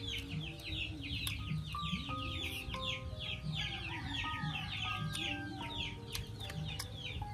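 Background music: a melody of held notes stepping between pitches, over a fast, high chirping that repeats about four to five times a second.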